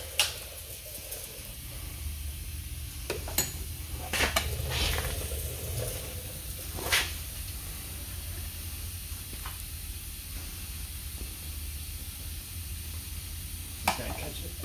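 Scattered sharp metal clicks and clinks of a 13 mm wrench working the metal oil drain plug under the truck, over a steady low hum and hiss.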